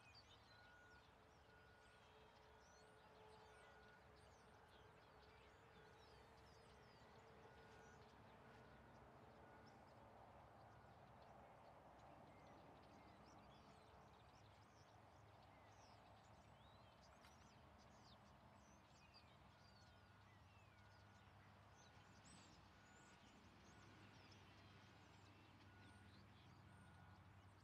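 Near silence: faint outdoor ambience with small birds chirping throughout over a low, steady hum, and a faint repeated high note near the start and again in the second half.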